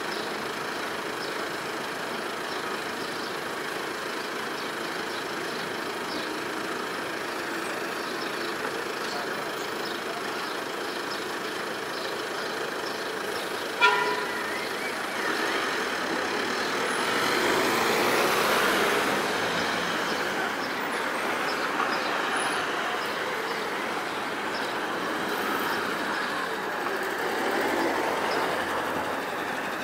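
City street traffic, with cars and a Scania Citywide hybrid bus moving slowly towards the stop. A single short car-horn toot sounds about halfway through, then the traffic noise swells for a few seconds as a vehicle passes close by.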